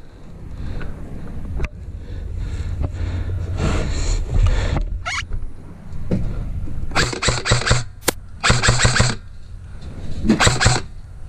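Airsoft guns firing: several short rapid bursts of sharp shots in the second half, with one single sharp shot between them.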